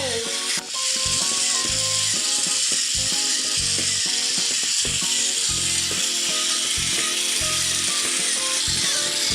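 A continuous ratcheting mechanical whir from battery-powered toy turtles' walking mechanisms, starting about half a second in. Background music with stepping bass notes plays over it.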